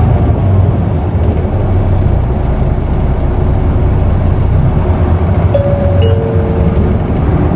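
Isuzu Erga city bus (PKG-KV234L2) running, its inline-six turbo diesel engine pulling hard in second gear, heard from inside the cabin as a loud, steady low drone.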